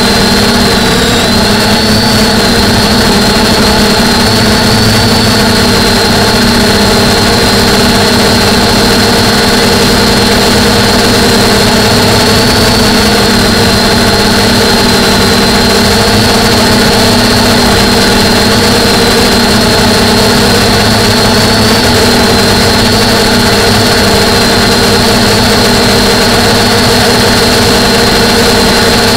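DJI F450 quadcopter's four E300 920kV brushless motors and 9.4-inch propellers running steadily in flight, picked up by the camera on the airframe: a loud, even drone with a high whine that wavers slightly in pitch.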